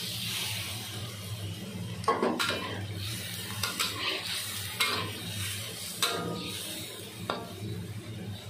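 A little water poured into a hot steel wok of chicken and thick soy sauce sizzles, then a metal spatula stirs it, scraping and clinking against the wok about once a second. A steady low hum runs underneath.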